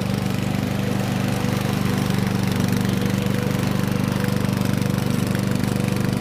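Lawnflite lawn mower's petrol engine running steadily at an even speed.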